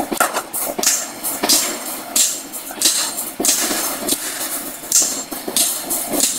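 Forging hammer striking a red-hot steel bar through a top tool in a swage die, irregular heavy blows about every half second to a second over steady workshop noise.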